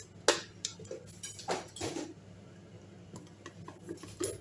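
Hard plastic parts of a small electric food chopper clicking and knocking as its motor head and bowl lid are lifted off, a string of short clicks spread over a few seconds.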